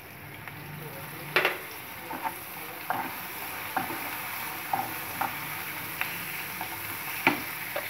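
Chopped onion and capsicum sizzling in hot oil in a frying pan with soy sauce just poured in, while a wooden spatula stirs them, giving a steady hiss with irregular knocks and scrapes of the spatula against the pan.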